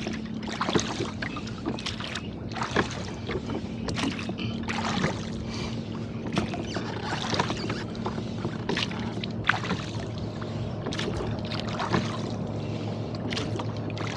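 Water splashing and slapping against a rowboat being rowed through a steep chop, in irregular bursts about once a second with a few sharp knocks. A steady low hum runs underneath.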